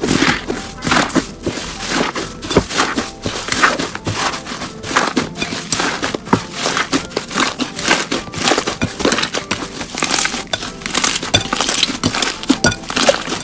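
Slime being squeezed and pressed by hand, giving a dense, continuous run of crackling, crunchy clicks.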